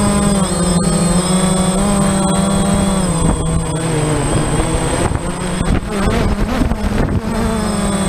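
Quadcopter's electric motors and propellers running in flight, a loud steady buzzing hum whose pitch sags and rises as the throttle changes. The hum turns rougher and wavering for a couple of seconds past the middle, then settles again.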